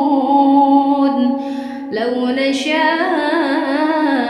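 A solo voice chanting Qur'anic recitation in the melodic murottal style: a long held note, a short breath about two seconds in, then a new wavering, ornamented phrase.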